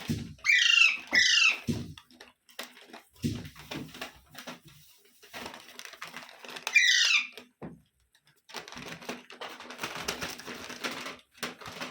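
Pet parrots giving three sharp, shrill squawks, each falling in pitch: two close together at the start and one about seven seconds in. A few soft low thuds, and a stretch of rustling near the end.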